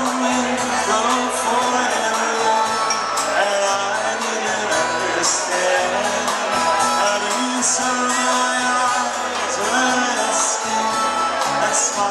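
Live rock band playing a song: a male singer's vocals over bass and drums, with cymbal crashes every few seconds.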